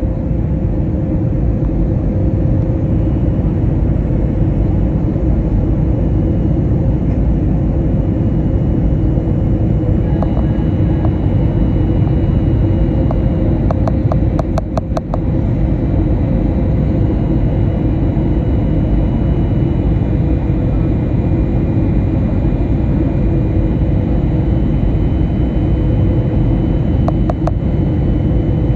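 Aircraft in flight heard from inside the cabin: a steady, loud roar of engines and rushing air with a few faint steady hums. A quick run of faint clicks comes about halfway through.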